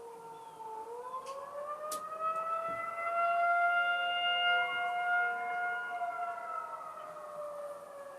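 Outdoor tornado warning siren sounding its wail: the pitch climbs about a second in, holds steady at its loudest for a few seconds, then slowly falls away near the end.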